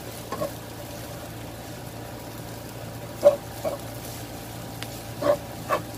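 Spatula strokes scraping against a non-stick wok as noodles are stirred and tossed: short sounds, mostly in pairs, a few times, over a steady low hum.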